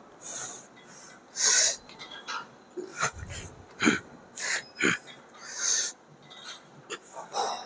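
A man breathing hard under exertion while lifting: short, sharp exhales, coming irregularly about once or twice a second.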